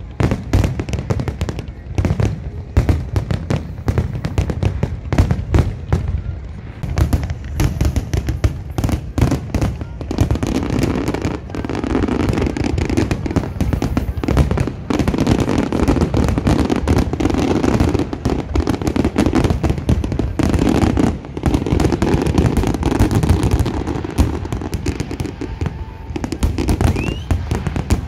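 Big fireworks display: shells bursting and banging in rapid succession, many a second. About ten seconds in the bangs thicken into an almost unbroken barrage.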